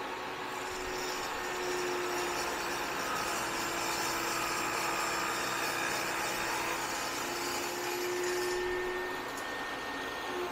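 Benchtop table saw running and cutting through a sheet of engineering plastic: a steady motor whine with the cutting noise over it, which stops about a second before the end as the blade spins free.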